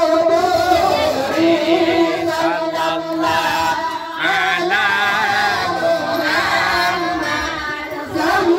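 A group of voices singing a chant together, with long held notes that waver in pitch.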